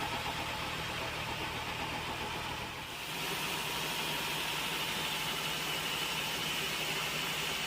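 Sawmill machinery running: a steady engine-like rumble that changes about three seconds in, the low rumble dropping away and a steady higher hiss taking over.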